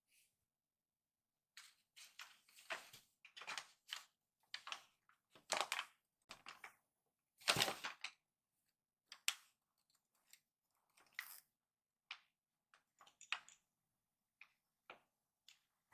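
Crumpled kraft paper bag rustling and crinkling in irregular short bursts as a kitten moves about inside it.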